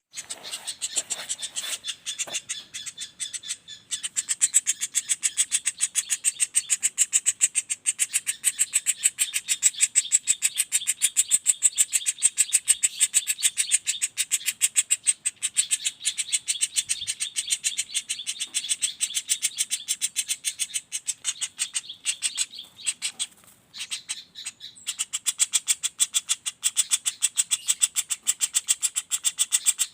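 Juvenile common flameback woodpecker (pelatuk bawang) giving a rapid, unbroken rattling trill of short high notes, with a few brief breaks a little after twenty seconds in.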